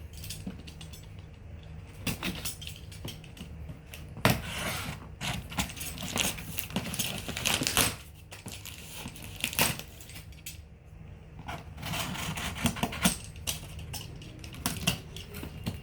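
Cardboard box being opened and its contents handled: scattered knocks and clicks, with several longer stretches of cardboard and packing scraping, rustling and tearing.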